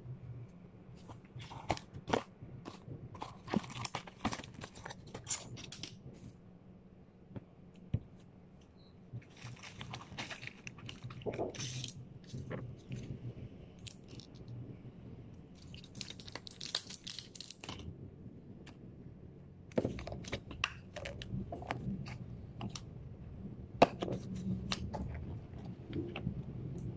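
Handling noise from plastic supplement bottles and a blister pack of capsules: scattered clicks and taps, with several short bursts of plastic crinkling.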